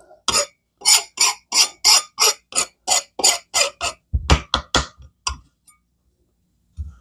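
Paring knife scraping the papery skin off a red onion: a quick run of short, crisp scrapes, about three a second. About four seconds in they give way to a few duller knocks of the knife against the cutting board.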